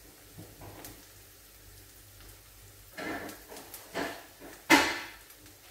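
Onions frying in a pan on a gas hob, a faint steady sizzle. Short sudden louder noises come about three and four seconds in, and the loudest just before the end.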